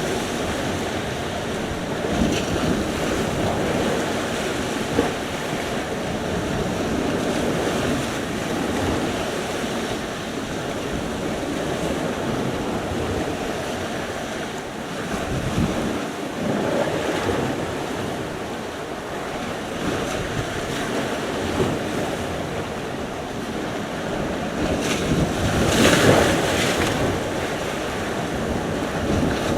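Sea surf: waves washing in continuously, swelling and easing, with one louder breaking rush near the end. Wind buffets the microphone.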